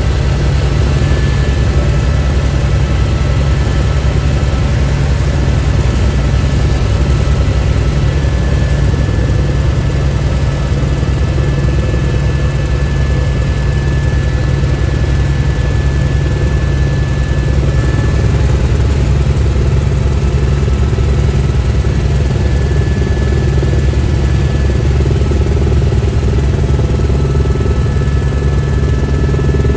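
Helicopter in flight heard from inside the cabin: a loud, steady low drone of rotor and engine, with a thin high whine that comes and goes.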